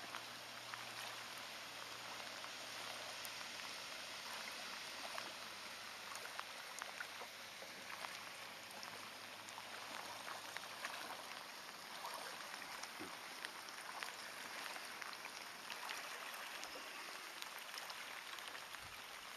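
Light rain falling on the river and on the boat: a steady soft hiss with faint scattered ticks of drops.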